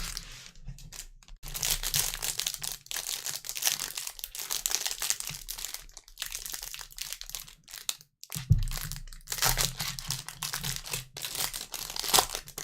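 Plastic wrappers crinkling and tearing as trading card packs are handled and opened, in two long stretches with a short pause between.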